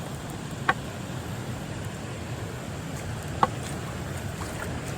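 Creek water running steadily over a shallow road ford, a continuous rushing noise, with two brief sharp ticks, one under a second in and one about three and a half seconds in.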